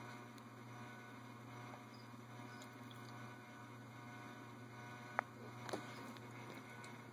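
A low steady hum, with two short clicks a little after five seconds in.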